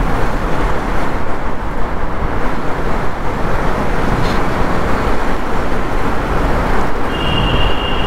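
Motorcycle riding steadily through a road tunnel at about 55 km/h, heard from the rider's position: a constant rush of wind, tyre and engine noise. About seven seconds in, a steady high-pitched beep starts and holds.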